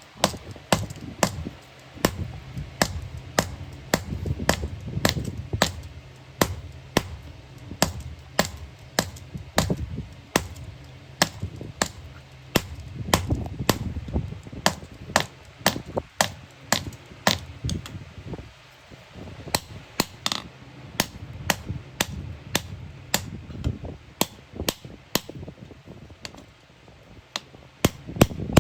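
Hammer blows on iron, a steady run of sharp strikes about two to three a second, each with a brief metallic ring.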